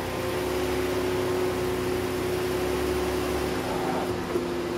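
Honda Pilot's 3.5 L V6 running steadily at low speed, warm, as the SUV creeps forward and climbs onto drive-on ramps.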